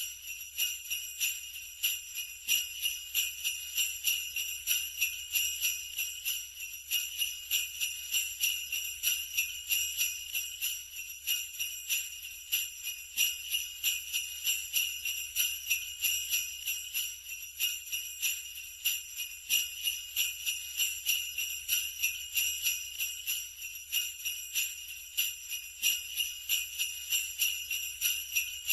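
Sleigh bells shaken continuously in a steady, even rhythm of a few shakes a second, a bright jingle that does not let up.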